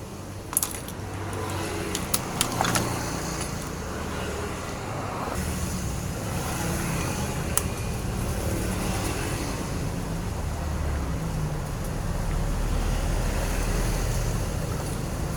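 Low, steady rumble of a motor vehicle's engine, like passing road traffic, growing a little louder near the end. A few sharp metallic clicks come in the first three seconds.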